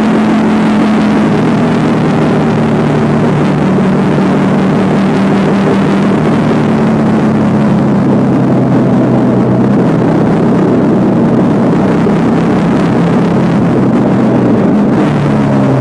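Motorcycle engine running at a steady cruise with wind rush, its pitch easing downward near the end as it slows.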